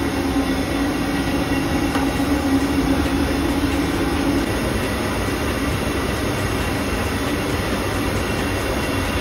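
Steady mechanical rumble of running machinery, with a low hum that fades out about halfway through.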